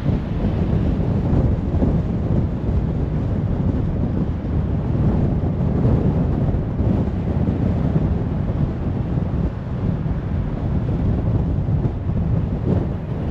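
Steady low rumble of a car driving along the road, with wind buffeting the microphone.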